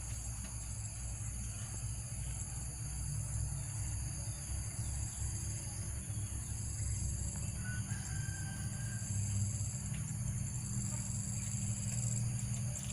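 Many small birds chirping continuously in a dense high chorus, over a steady low rumble.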